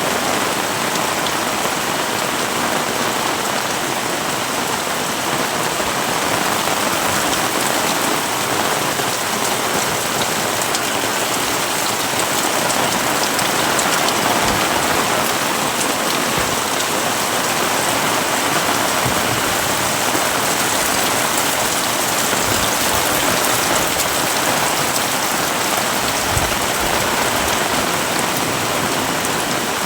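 Heavy rain falling steadily in a dense, even hiss, with a few soft low thumps partway through.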